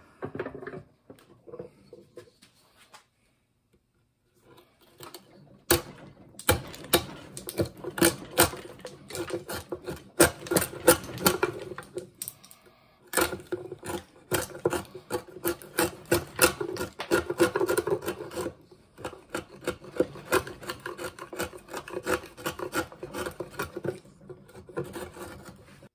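Buck Bros bent chisel paring wood, pushed by hand along a groove in a wooden board: a quick run of crisp clicks and scrapes as the edge lifts off chips. It starts lightly, comes in fully a few seconds in, and pauses briefly about halfway before carrying on.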